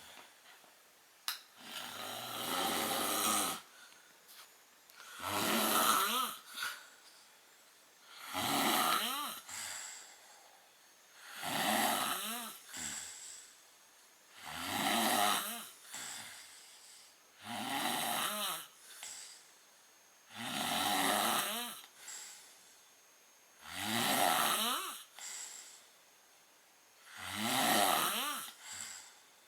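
A man snoring heavily: about nine long snores, roughly three seconds apart, each followed by a short, fainter breath. A single sharp click sounds a little over a second in.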